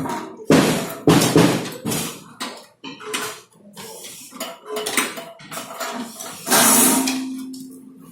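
Irregular clatter and knocks of metal parts being handled, with a few louder noisy bursts, the longest about seven seconds in.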